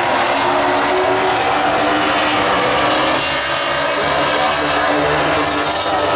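Engines of several Baby Grand stock cars racing round an asphalt oval: a loud, steady drone of overlapping engine notes whose pitch wavers as the cars pass and go on.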